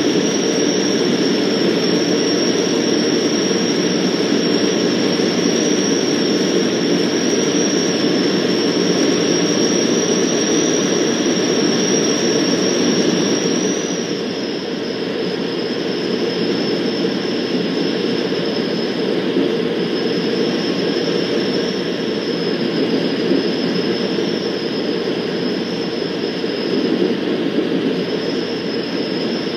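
Steady drone of a Van's RV-12's Rotax 912 four-cylinder engine and propeller with rushing airflow, heard inside the cockpit in flight, with a thin high whine running over it. About halfway through, the level and the whine drop a little and stay lower.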